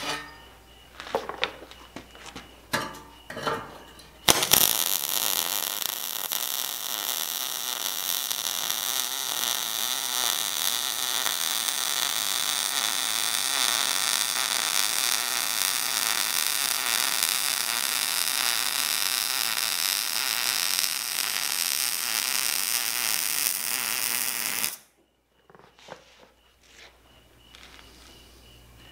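MIG (wire-feed) welding arc running one continuous bead on steel tubing: a steady sizzle that starts about four seconds in and cuts off sharply about twenty seconds later. A few light clicks and knocks come before it.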